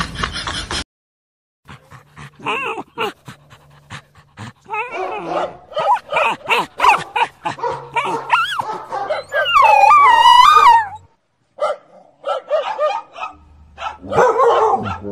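A dog barking and whining in many short calls, with one long wavering high-pitched cry about two-thirds of the way in, the loudest sound.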